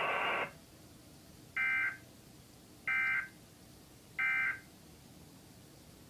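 Emergency Alert System end-of-message signal: three short buzzy digital data bursts about 1.3 seconds apart, the AFSK 'NNNN' code that closes an EAS Required Monthly Test.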